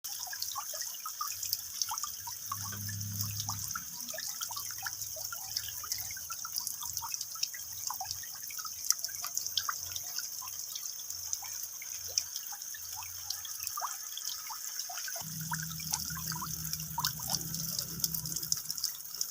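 Rain dripping into standing water: many small, irregular drops plinking over a steady high hiss. A low hum comes in about fifteen seconds in.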